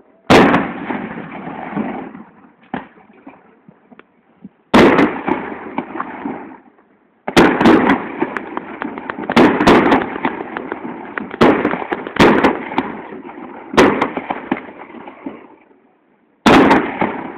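Aerial firework shells bursting with sharp bangs, each trailing off in a rolling echo. One bang comes just after the start and another near five seconds, then a rapid run of bangs lasts about eight seconds, and one more bang comes near the end.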